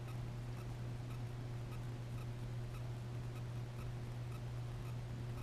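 A steady low hum with faint, fairly regular ticks, about two a second, over it.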